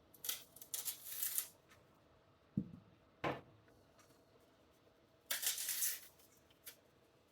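Dry onion skins crackling and rustling as they are peeled off by hand, in two short spells, with a few short knocks and clicks in between.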